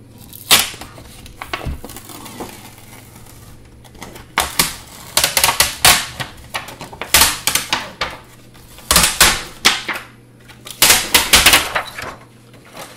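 Irregular bursts of crackly scratching and clicking as the old PEI sheet and its adhesive are peeled and scraped off the warmed glass bed of a LulzBot TAZ 6 3D printer.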